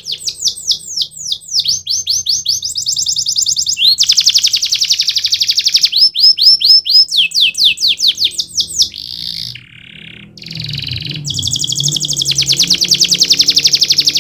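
Domestic canary singing: fast trills of repeated falling notes that switch to a new run every second or two, with a brief break about ten seconds in.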